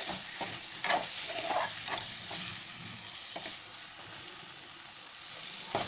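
Metal spoon stirring and scraping potato-and-eggplant sabji around a metal kadai, with a steady sizzle from the frying pan. The scrapes and clicks come thick in the first two seconds and thin out after, with one louder knock near the end.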